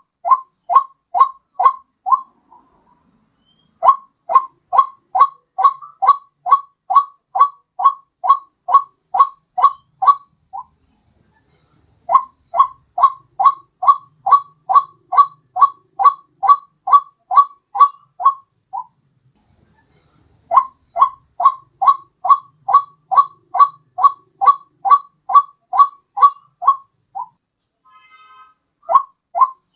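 White-breasted waterhen (ruak-ruak) lure call: short falling notes repeated about two and a half times a second, in runs of several seconds broken by short pauses.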